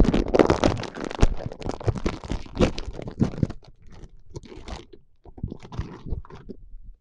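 Crisp packet being torn open and handled, with dense crinkling and crackling for the first few seconds, then sparser rustles.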